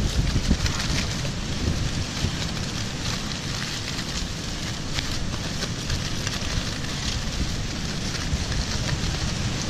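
Aluminium foil crinkling and crackling as hands fold and press it into a double-wrapped parcel around fish, over a low rumble of wind on the microphone.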